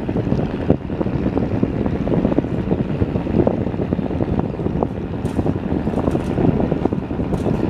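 Diesel engine of a river passenger launch with a 380-horsepower Weichai engine, rumbling steadily as the boat runs past at speed, with wind buffeting the microphone. A few faint clicks come in the second half.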